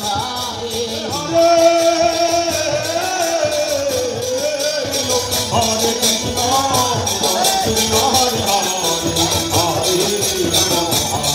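Bengali Harinam sankirtan: a group singing a devotional chant to khol drums and clashing hand cymbals in a steady beat, louder from about a second and a half in.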